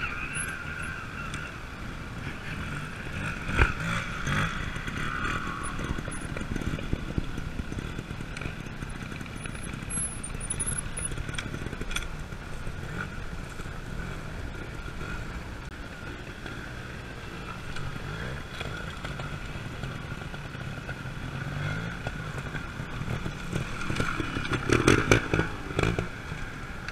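Trials motorcycle engine running at low revs with uneven throttle blips, rising to a louder stretch of revving near the end.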